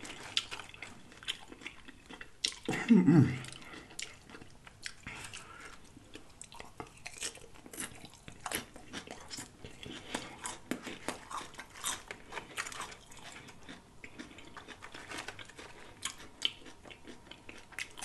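Close-up chewing and biting of loaded nachos: tortilla chips, lettuce and crunchy jalapeños crackling between the teeth, with wet bites throughout. About three seconds in comes a brief low vocal sound from the eater, falling in pitch, the loudest moment.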